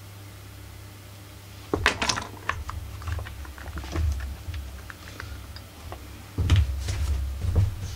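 Clicks and light knocks of a Husqvarna 44 chainsaw's plastic and metal body being gripped and shifted on a workbench, in two bouts: about two seconds in and again near the end, over a steady low hum.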